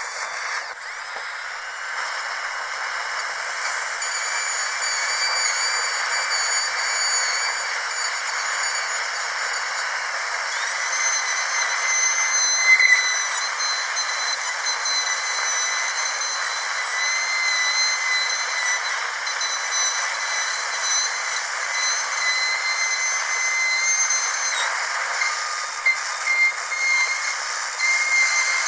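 Dental drill running steadily: a high, thin whine of several tones that waver slightly in pitch, over a constant hiss.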